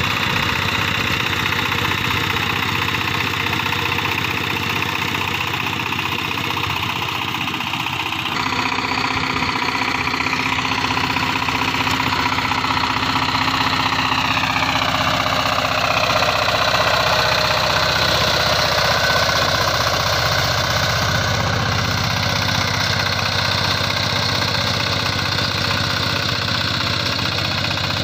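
Power tiller's single-cylinder diesel engine running steadily under load as it drives a rotavator and cage wheels through wet paddy mud. The sound changes abruptly about a third of the way in, and its pitch drops a little near the middle.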